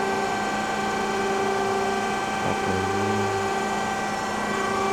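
Hydraulic pump of an Amada 138-ton CNC press brake running at idle: a steady hum with several constant tones. A single knock about two and a half seconds in.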